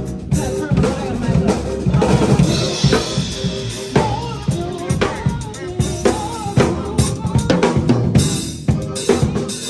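Live band playing: a drum kit with kick and snare keeps a steady beat over bass, guitar and keyboard, the drums loudest.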